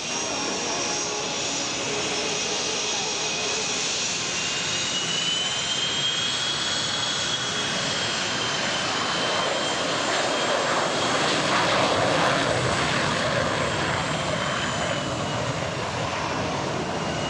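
F-14 Tomcat's twin jet engines at full power with afterburners lit through the takeoff roll and lift-off: a loud, steady jet noise with a high turbine whine that wavers slowly in pitch. It grows loudest about twelve seconds in as the jet passes.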